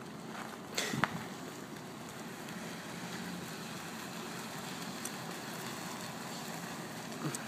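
SUV driving slowly up across a parking lot, its engine and tyres running low over a steady outdoor hiss. Two short knocks come about a second in and near the end.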